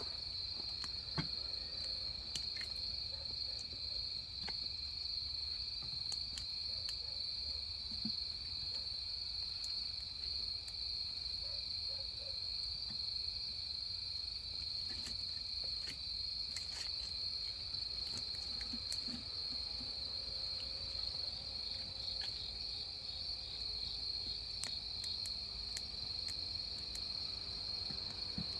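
A steady, shrill chorus of autumn grass insects singing without a break, with scattered faint clicks over it.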